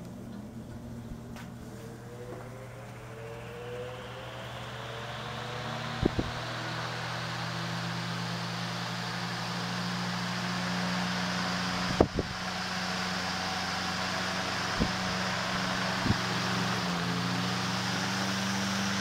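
1938 Emerson 73646 desk fan's electric motor humming as it spins up to speed, the rush of air growing and the blade tone rising over the first several seconds, then running steadily while it oscillates. A few sharp clicks, the loudest about six and twelve seconds in.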